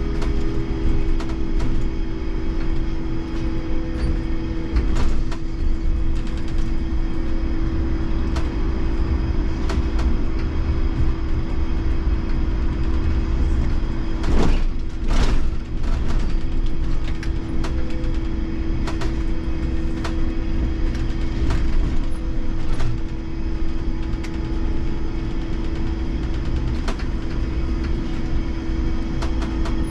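IMC Hess Lightram 19 DC trolleybus driving, heard from the driver's cab: a continuous low rumble with a steady hum. Sharp clicks come now and then, and two louder ones about halfway.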